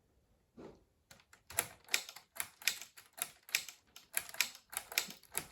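Keys of a LEGO brick-built typewriter being pressed in quick succession, plastic keys clacking about three or four times a second from about a second in.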